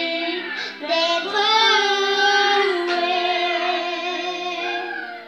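A six-year-old girl singing in long held notes, trailing off near the end.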